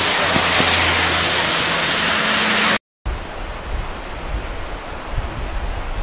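Heavy rain and car tyres hissing on a wet road, with a passing vehicle's engine hum underneath. The hiss cuts off abruptly about three seconds in. A quieter steady rushing noise with a low rumble follows.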